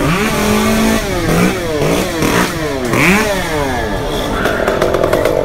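Chainsaw engine revved again and again, its pitch sweeping up and down, then held more steadily near the end.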